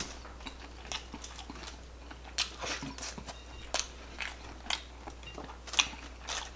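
Close-miked chewing of buttery jumbo shrimp: irregular wet mouth clicks and smacks, a few louder than the rest.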